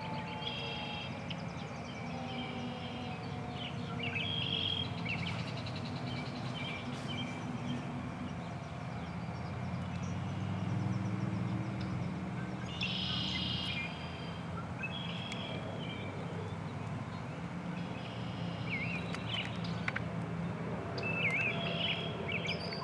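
Birds chirping over a steady low rumble, while the siren's last falling tones wind down and fade out in the first few seconds.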